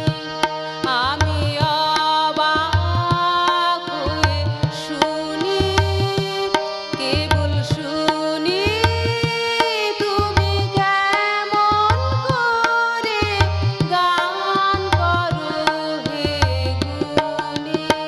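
A woman singing a Bengali song, accompanied by a harmonium's sustained reed chords and a tabla played in a steady rhythm, with its bass drum booming under the melody.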